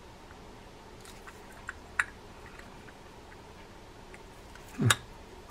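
Small metal parts of a baitcasting reel clicking and ticking faintly as the frame and side plate are handled, with one louder thump near the end.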